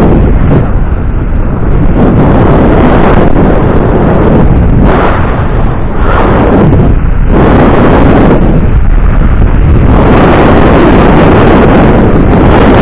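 Loud wind buffeting an action camera's microphone on a moving electric bike. It is a rough rushing roar that swells and eases every second or two.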